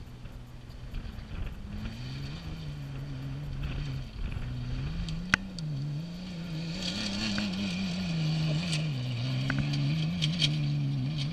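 Off-road race truck's engine approaching and passing close over a dirt track, its revs rising and falling several times as it drives through. The truck grows louder as it nears, and a hiss of tyres on gravel joins the engine in the second half.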